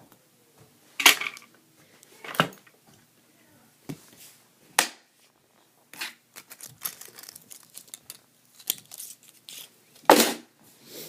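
Handling noise: scattered clicks, rustles and knocks, with louder knocks about a second in and near the end.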